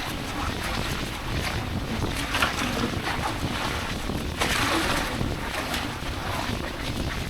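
Wind buffeting the microphone over the wash of the sea, with louder surges about two and a half and four and a half seconds in.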